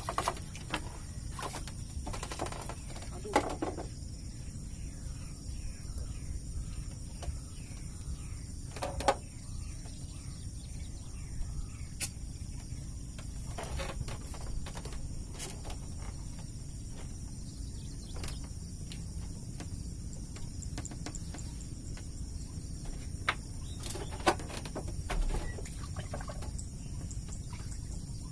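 Outdoor ambience over open water: a steady low rumble with scattered clicks and knocks, and faint high chirping of insects. A hooked tilapia splashes at the surface about two to three seconds in.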